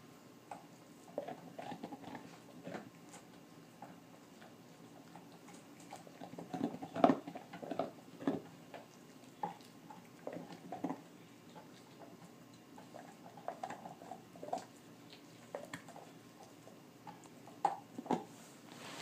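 A dog gnawing on a raw beef rib bone: irregular wet crunches and clicks of teeth on bone, with a louder spell of crunching around the middle and a few sharp cracks near the end.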